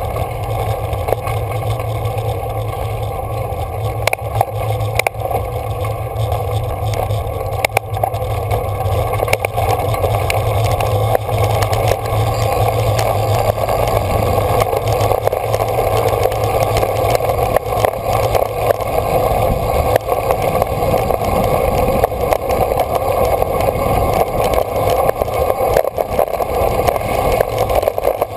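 Steady wind rushing over a bike-mounted camera's microphone, mixed with the rumble of a road bike's tyres on a rough, gravelly road and small rattling clicks.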